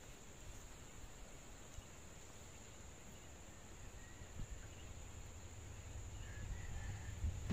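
Faint outdoor ambience: a steady high-pitched insect drone with a few faint bird chirps, over a low wind rumble on the microphone that grows louder near the end.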